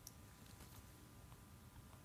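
Near silence: room tone, with a faint click right at the start and a few fainter ticks.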